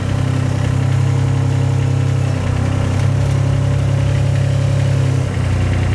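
Aquatic weed harvester work boat's engine running steadily at about a third throttle while the loader bucket is raised. Its note dips briefly about halfway through and shifts lower near the end.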